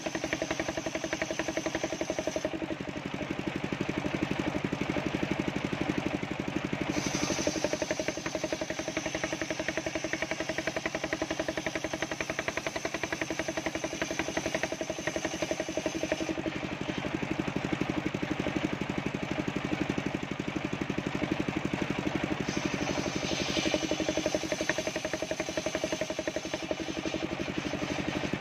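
Homemade circular saw bench ripping coconut-wood planks, its drive running steadily with a fast, even pulse. A high whine drops out twice and comes back.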